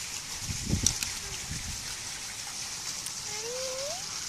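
Steady hiss of running water from an outdoor spout, with a soft bump about a second in. Near the end, a Siamese-type cat gives one short meow that rises in pitch.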